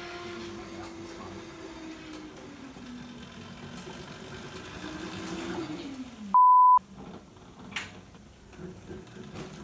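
Whine of the converted ride-on mower's Motenergy ME1718 electric drive motor, its pitch sagging, climbing and then dropping quickly as the speed changes. About six seconds in, a loud half-second censor bleep cuts across it.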